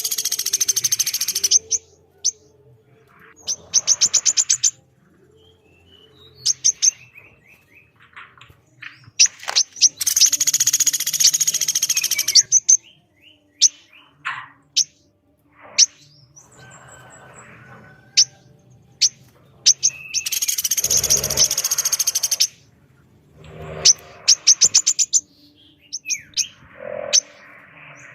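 Bird calls of a pelatuk beras woodpecker and a female korlap, alternating. Three loud, harsh, rasping bursts of about two seconds each stand between quick rattling trills and short sharp chirps.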